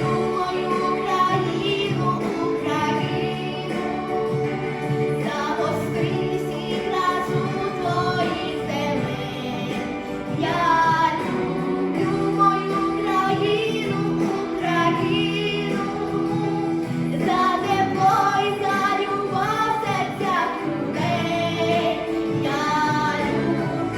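A female voice singing a song over an instrumental accompaniment.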